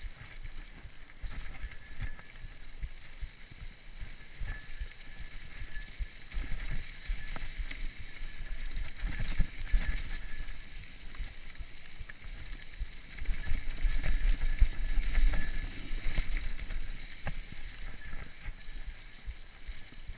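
Mountain bike ridden fast along a dry, leaf-strewn dirt trail: tyres rolling over leaves and dirt, and the bike knocking and rattling over bumps. Wind buffets the microphone throughout. It is loudest for a few seconds about two-thirds of the way through.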